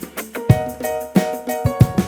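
Background music with a steady drum beat and plucked notes.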